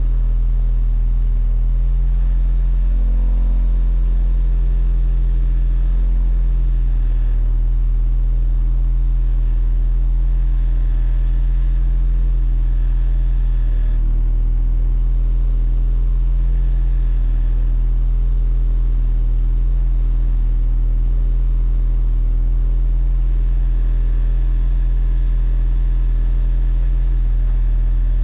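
Competition car's engine idling steadily with a low, even hum, heard from inside the stripped, roll-caged cabin while the car stands still.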